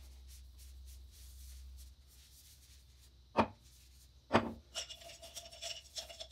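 A cloth rag rubbing as it polishes small bathroom counter containers. Two sharp knocks come about a second apart as containers are set down on the countertop, and near the end the rag rubs with a squeaky tone.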